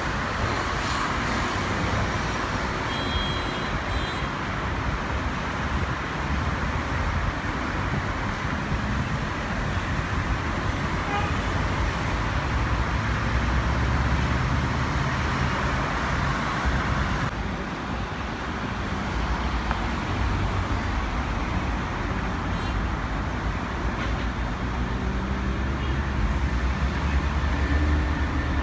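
Steady road-traffic din with a low rumble that swells in the middle and again near the end. A hiss in it drops away abruptly about two-thirds of the way through.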